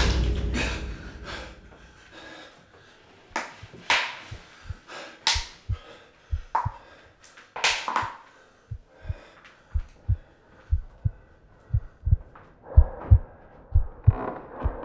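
A heartbeat sound effect: low, dull thumps that start a few seconds in and come faster and faster. They run under a man's heavy, ragged breaths.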